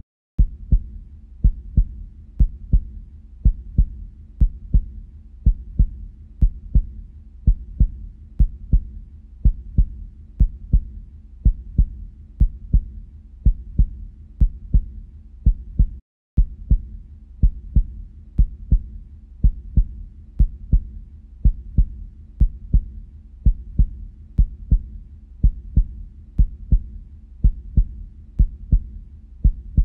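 Heartbeat: a steady rhythm of low lub-dub thumps, used to pace the eye movements. It drops out for a moment twice, just after the start and about halfway through.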